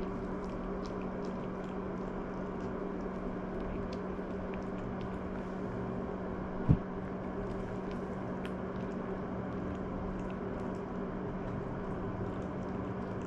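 Maltese puppy chewing dry kibble: faint, irregular small crunches and clicks over a steady electrical hum, with one short low thump about halfway through.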